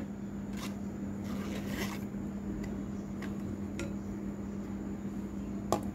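Faint scattered clicks and soft rustles of damp blanched taro leaves being pressed by hand into a steel mixer-grinder jar, over a steady low background hum.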